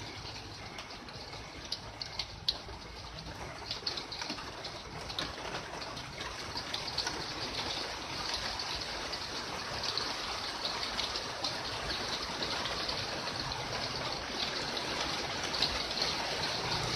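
Rain falling steadily in a rainstorm, with scattered sharp drip and splash ticks; it grows gradually louder.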